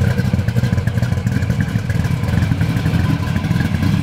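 Supercharged 540 cubic inch big-block Chevy V8 with a solid roller cam, running at a steady idle through its stainless exhaust, heard at the tailpipes.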